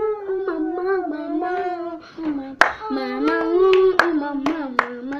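A child singing a tune in long held notes, with a few sharp hand claps in the second half.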